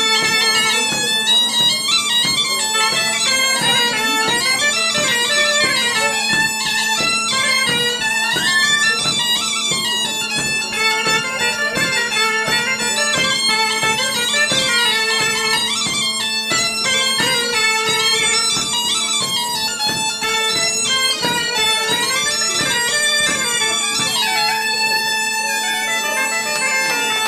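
Breton piping duo, bagpipe and bombarde, playing a quick dance tune together over the bagpipe's steady drone.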